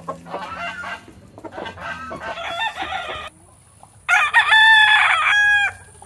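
A rooster crows once, loudly, about four seconds in, in a call lasting under two seconds. Softer chicken clucking comes before it.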